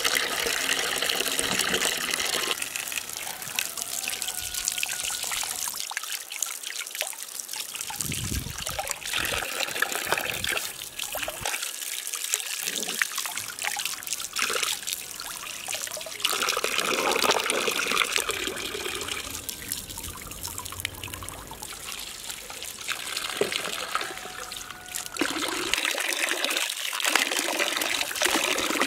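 A stream of running water pours and splashes into an aluminium basin of water as carrots and celery are rinsed under it by hand. The splashing swells and eases as the hands and vegetables move in and out of the stream.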